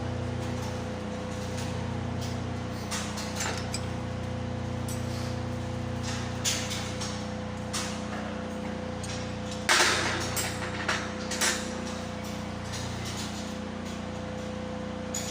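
Steady electrical hum of a running welding machine, with scattered metal clinks and knocks and one louder brief burst of noise about ten seconds in.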